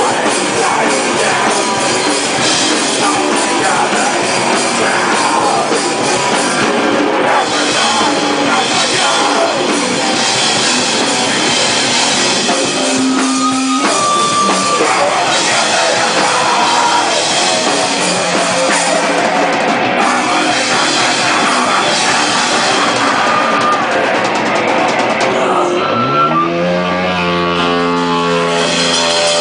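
Hardcore rock band playing live, loud, with distorted electric guitars and a drum kit. Near the end the drums drop out and a held guitar chord rings on.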